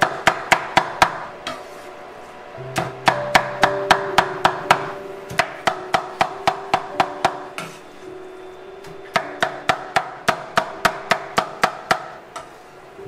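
Chef's knife chopping wilted spinach on a wooden cutting board: rapid, even chops about four a second, in three runs with short pauses between, over background music.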